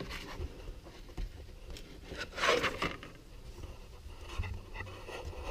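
Sheets of knife-liner material being handled: light scraping and rubbing, with a louder brief rush of noise about halfway through.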